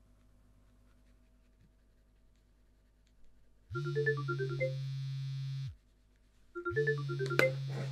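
Mobile phone ringing: a short ringtone melody over a steady low buzz, heard twice, each ring about two seconds long, starting about four seconds in.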